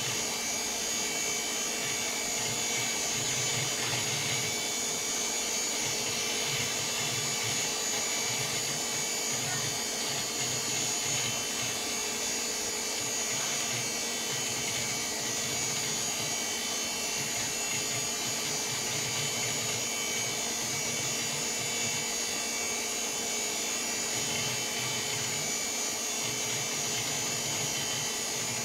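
VAX 4000-100A minicomputer running under power: a steady whir from its cooling fans and drives, with a constant high whine and a hum beneath. A low rumble comes and goes irregularly as the machine works through its OpenVMS startup.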